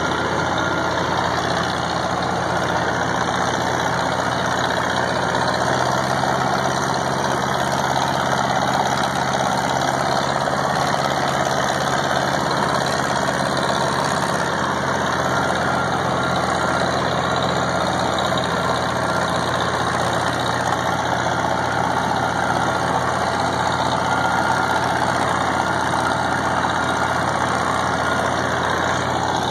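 A tractor-drawn Dewulf harvester and a dump truck working slowly side by side: their diesel engines and the harvester's machinery make a steady, unbroken drone.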